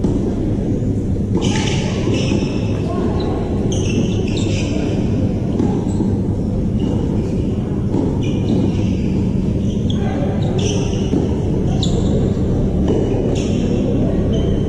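Tennis rally: balls struck by rackets and bouncing on the court, sharp hits every one to two and a half seconds, over a steady low rumble.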